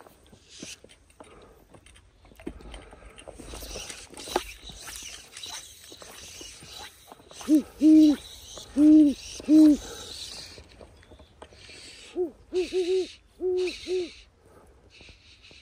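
An owl hooting: a run of about four low, deep hoots, then after a pause another run of about five or six. Each hoot swells and falls slightly in pitch.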